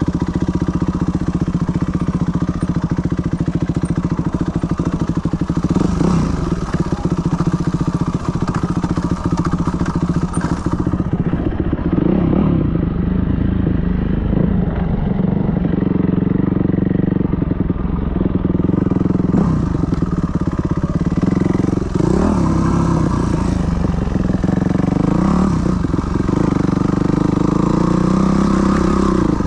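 Yamaha WR250F's single-cylinder four-stroke engine running as the dirt bike is ridden, heard from on the bike, its pitch rising and falling repeatedly as the throttle opens and closes.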